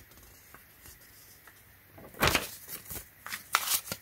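A folded paper instruction sheet being handled and folded, giving a run of irregular rustles and crackles that start about halfway in.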